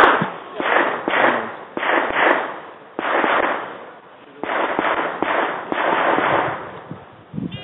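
Pistol gunfire: a string of sharp shots at irregular intervals, roughly one every half second to a second, each trailing off in a long echo.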